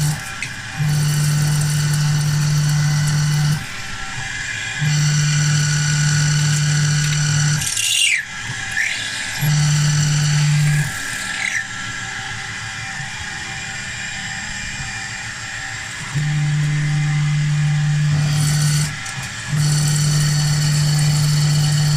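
Stepper motors of a CNC milling machine driving the axes in a series of moves: a steady electric whine that starts and stops every one to three seconds, with a quick swoop of pitch down and back up about eight seconds in.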